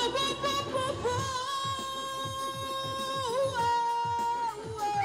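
A woman singing live into a microphone, holding a long high note and then stepping down to lower ones, over backing music with a steady beat.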